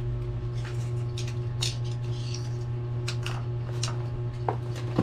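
Screwdriver and small screws clicking and scraping against the metal of a CPU heatsink-and-fan cooler, with two sharper clicks near the end, over a steady low hum.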